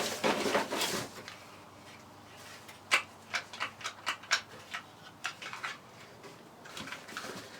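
Handling noise in the first second, then a string of light, irregular clicks and taps as small table saw parts are picked up and set down.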